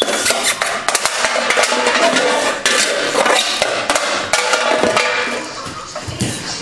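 Rapid, irregular clattering and knocking on a tiled floor, a metal can knocked about as a puppy and a child play with it.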